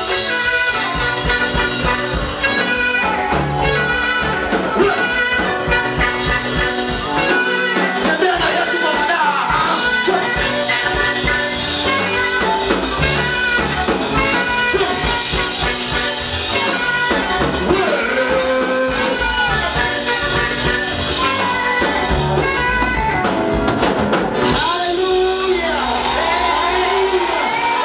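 Live gospel praise-and-worship music: a church praise band playing with bass notes on a steady beat, and voices singing.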